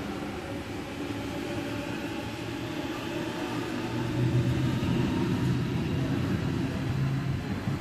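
Double-deck electric passenger train running along the tracks: a steady rumble with a low hum that grows louder about halfway through.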